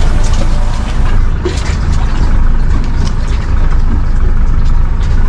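Loud, steady low rumble with no clear pitch.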